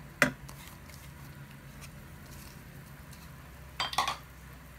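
A wooden spoon knocking against a cooking pan while stirring chopped leeks: one sharp knock near the start and a quick cluster of clicks near the end, over a low steady hum.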